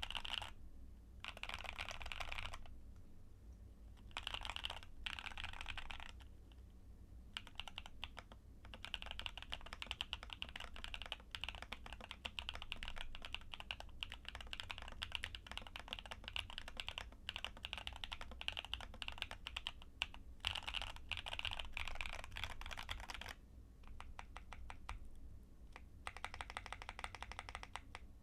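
Typing sound test on a Keychron Q10 Alice-layout aluminium mechanical keyboard with Gateron switches, PE foam, lubed stabilizers and taped case halves: fast runs of crisp, snappy key clicks with short pauses between runs.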